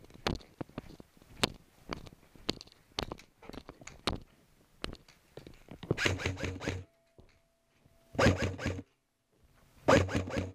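Airsoft electric rifle firing three short full-auto bursts, a rapid ratcheting clatter with a motor buzz under it, about six, eight and ten seconds in. Before them come scattered sharp clicks and scuffs of footsteps and gear.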